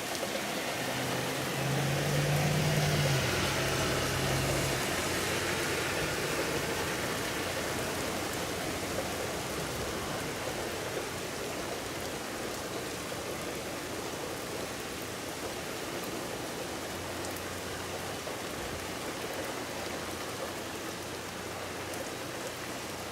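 Steady rain falling during a thunderstorm, an even hiss of rain on surfaces. A low rumble swells in the first seconds and fades by about five seconds in.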